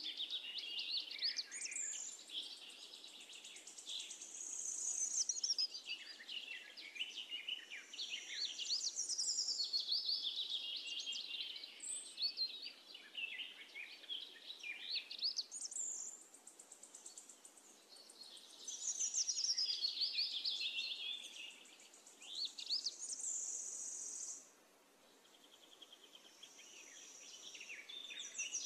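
Birdsong: several birds chirping and warbling in quick rising and falling trills, almost without pause, briefly quieter about three-quarters of the way through.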